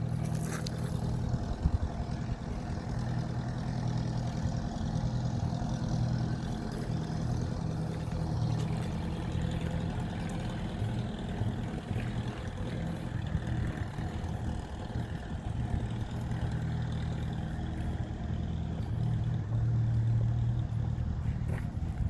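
An engine running steadily with a low, even hum that holds at one pitch throughout.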